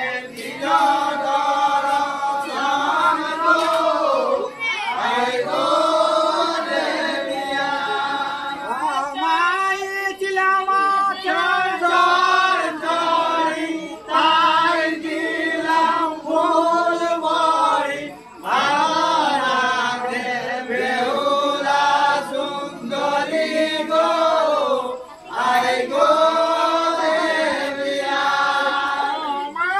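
Voices singing a devotional chant in long, wavering phrases, with short breaks between phrases.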